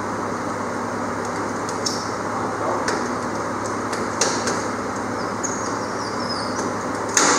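A few sharp metallic clicks and knocks as bolts and hand tools work on an aluminum jack plate being bolted to a jon boat's transom, with a louder knock near the end, over a steady background hum.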